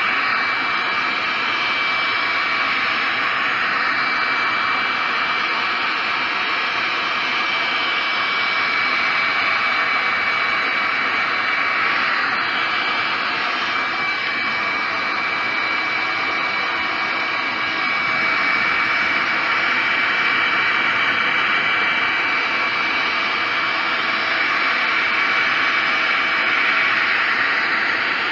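Electric heat gun running steadily: a rush of blown air with a thin, steady high whine from its fan motor. It is aimed into the bearing housing of an aluminium motorcycle crankcase, heating the case so the bearings will go in.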